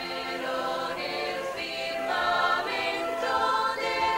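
A choir singing slow, sustained notes as background music, the chords changing every half second or so.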